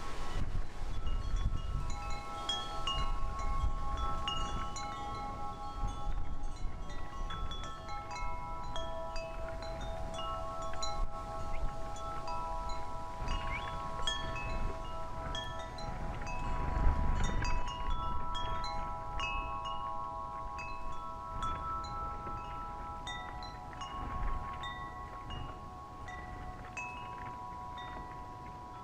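Metal tube wind chimes ringing steadily in the breeze, many overlapping notes sounding on. Gusts of wind rumble on the microphone, strongest near the start and about two-thirds of the way through.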